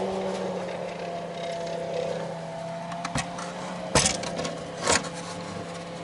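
A small mains-powered axial cooling fan, its bearing freshly oiled, runs with a steady hum. The plywood board it is mounted on knocks against the metal of a car's spare-wheel well three times, about three, four and five seconds in.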